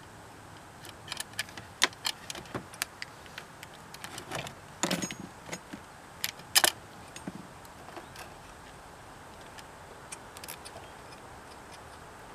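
Hands fitting battery leads and their plastic plug connectors into a generator's battery compartment make small clicks, taps and light metallic rattles, with louder knocks about five seconds in and again a moment later.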